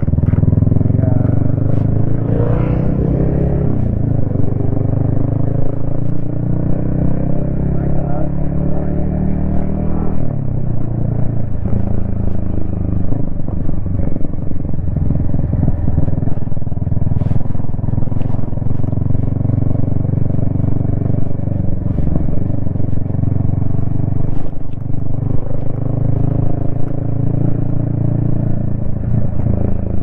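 Yamaha XSR155's single-cylinder four-stroke engine running on the move, picked up by a helmet-mounted camera, its pitch rising and falling with throttle and gear changes. A few sharp clicks come through in the second half.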